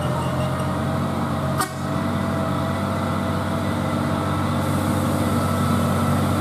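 Mitsubishi Fuso truck's diesel engine pulling steadily up a steep incline, growing slowly louder as the truck approaches. One sharp click sounds about a second and a half in.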